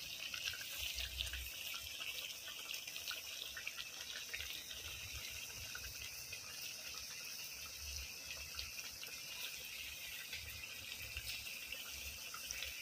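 Tongkol tuna in soy-sauce gravy sizzling and bubbling in a pan: a faint steady hiss with many small pops.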